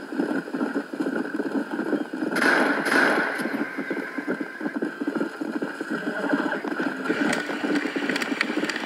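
Horse hooves clip-clopping in a fast, even patter, with a horse whinny about two and a half seconds in.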